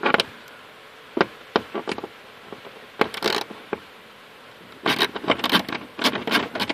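Small hand ratchet clicking as it turns a bolt on a truck's interior trim panel: a few separate clicks at first, then a fast run of clicks near the end as the ratchet is worked back and forth.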